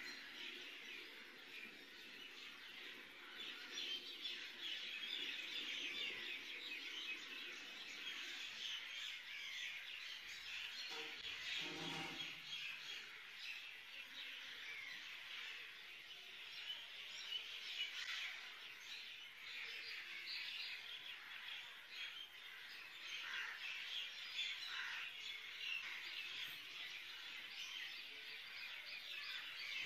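A dense, continuous chorus of many small birds chirping, a constant mass of short high chirps.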